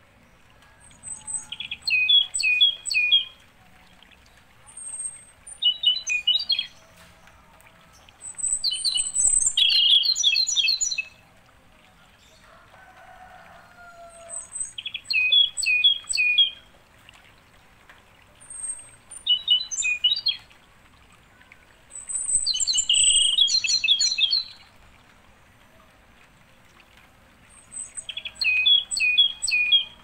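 A songbird singing the same short phrase over and over, about seven times: each phrase opens with a few very high notes and runs into a quick series of lower chirping notes, with brief pauses between phrases.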